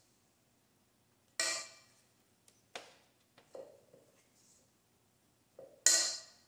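Stainless steel stand-mixer bowl knocked and clinked while cookie dough is scooped out of it: four sharp knocks that ring briefly, the loudest near the end.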